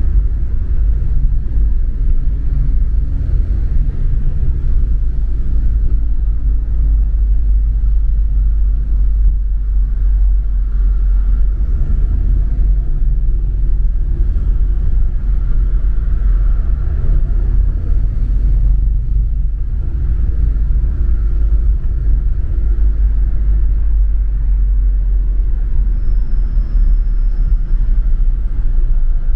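Steady low engine and road rumble of a double-decker bus, heard from inside the cabin while it drives.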